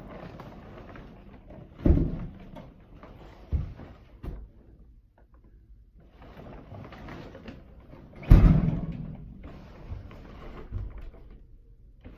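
Empty 40-gallon water heater being hauled up stairs by a tarp wrapped around it: scraping and tarp rustling, with a few heavy thuds as the tank lands on the steps, the loudest about eight seconds in.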